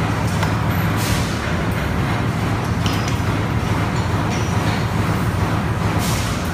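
Steady low mechanical hum and rumble, with a few faint clicks of hand tools on the turnstile's steel frame.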